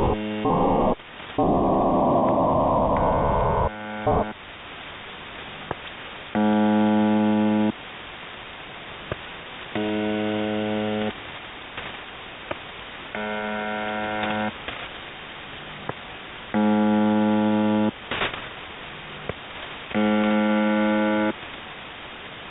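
UVB-76 "The Buzzer" shortwave station: a harsh buzz tone about a second long, repeating about every three and a half seconds, with static hiss between buzzes. In the first four seconds there are bursts of rougher noise and clicks instead of the regular buzz.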